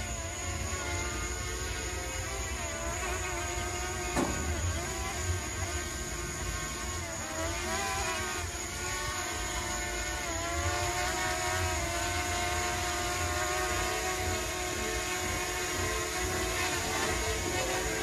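Small quadcopter drone flying overhead: its propellers whine in a stack of tones that rise and fall as it changes speed, over a low wind rumble on the microphone.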